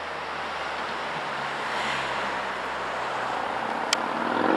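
Eurocopter EC135 helicopter's rotor and turbine noise as it climbs out after take-off, a steady wash that grows gradually louder. A brief sharp click sounds near the end.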